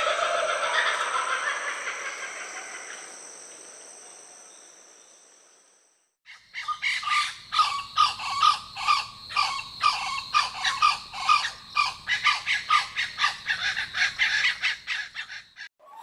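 A laughing kookaburra's call fading out over the first few seconds. Then, after a brief silence, a blue-winged kookaburra calls: a long run of rapid notes, about four a second, stopping just before the end.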